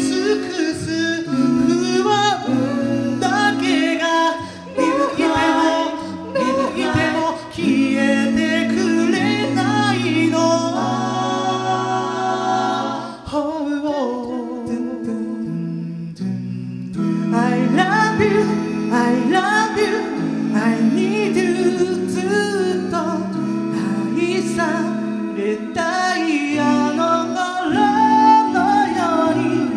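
A cappella group singing into microphones: male lead voices over sung backing harmonies and a low, sustained bass line.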